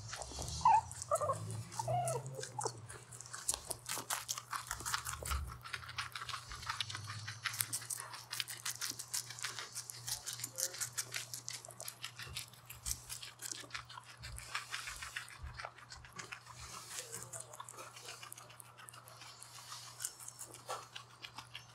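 Guinea pigs chewing cucumber: a rapid, steady run of small wet crunches and clicks as they bite and grind the pieces.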